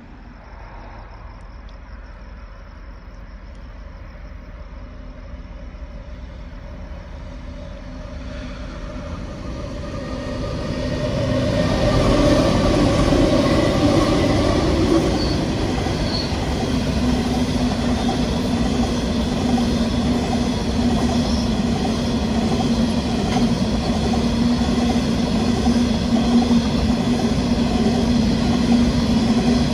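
Pacific National coal train with two diesel locomotives approaching and growing louder, passing close by about twelve seconds in. Then a steady rumble of coal hopper wagons rolling past, with a light wheel squeal.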